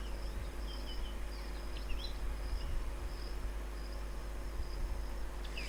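Faint background of insects chirping, short high-pitched chirps coming on and off over a steady low hum.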